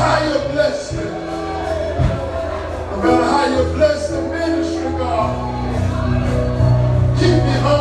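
Live church worship music: singing voices over a band with a sustained bass line.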